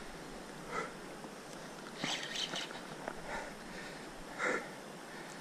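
An angler straining against a big fish, breathing hard: a few short sniffs and puffs of breath, the strongest about four and a half seconds in, over a faint steady hiss.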